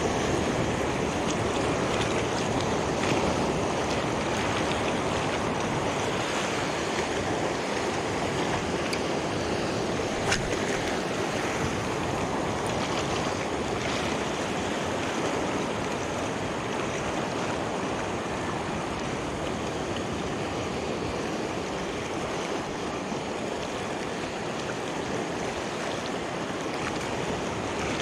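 Small sea waves washing steadily over shoreline rocks, an even rushing wash, with one brief click about ten seconds in.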